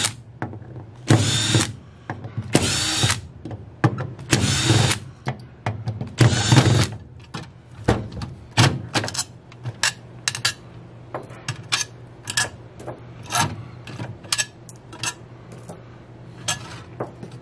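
Cordless drill/driver backing the bolts out of an aluminium automatic-transmission valve body, in four short runs of about a second each. After that comes a string of light clicks and taps of small metal parts being handled.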